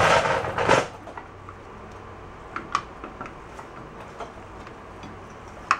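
A short loud rustling clatter in the first second, then a few sparse light metallic clicks and ticks as a wrench is fitted and worked on the wheel cylinder bolts of a VW bus rear brake backing plate.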